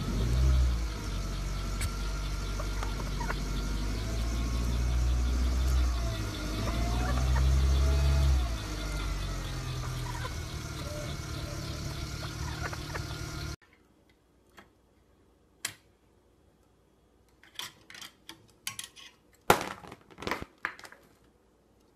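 A wild turkey pecking at a car door, over a steady low rumble, with a few faint gliding calls. About thirteen and a half seconds in, this cuts to near quiet broken by scattered sharp clicks and short chirps from a cockatiel on its perch.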